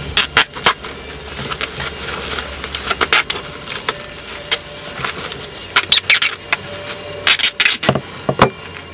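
Plastic cling film crinkling and crackling as it is pulled off the roll and folded around a pita sandwich, in irregular sharp bursts, with a couple of dull knocks near the end.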